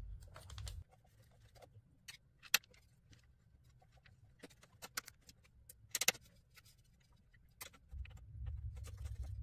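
Small metallic clicks and scrapes of a hex key turning out the screws on a 3D printer's frame, scattered and irregular, with the sharpest clicks about two and a half and six seconds in.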